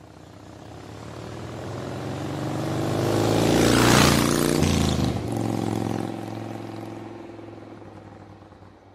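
A motor vehicle's engine driving past: it swells up from quiet to a peak about four seconds in, drops in pitch as it passes, then fades away.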